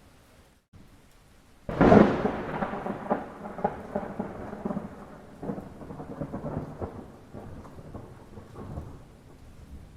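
Thunderclap over steady rain: a sudden loud crack about two seconds in breaks into a crackling rumble that slowly fades over the following seconds.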